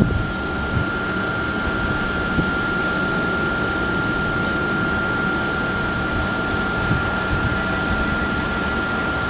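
Class 377 Electrostar electric train standing at the platform with its onboard equipment running: a steady hum and a constant high-pitched whine.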